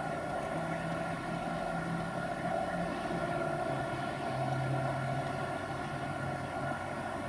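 A steady low droning hum made of several held tones, with a low tone that steps down in pitch about halfway through, like distant engine drone carried on the night air.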